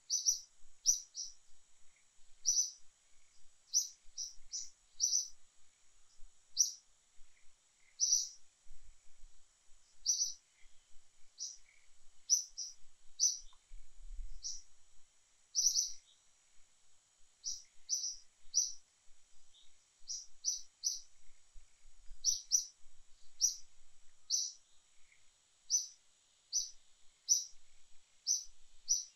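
A bird chirping, short high notes repeated irregularly about once or twice a second, over a faint steady high hiss.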